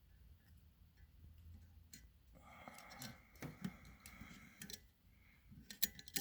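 Faint small metallic clicks and scraping as a pick tool works at the valve keepers of a compressed valve spring on a Honda CL175 cylinder head, with a scratchy stretch in the middle and a few sharper clicks near the end.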